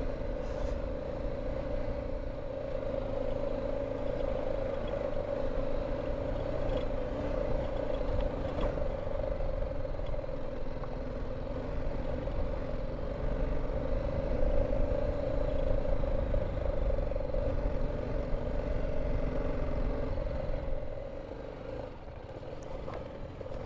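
BMW G310 GS single-cylinder motorcycle engine running at a steady speed while riding, with a low rumble underneath. The engine sound eases and quietens about 21 seconds in.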